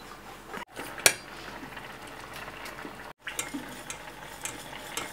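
A sharp clack about a second in, then a metal whisk ticking against a stainless steel saucepan as cream is poured in and whisked.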